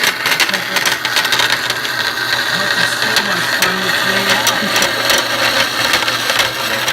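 Band saw running and cutting: a steady hum under a rough rasping noise peppered with small clicks.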